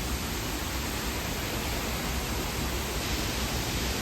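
Steady rushing roar of falling water from a waterfall, an even noise with a low rumble underneath.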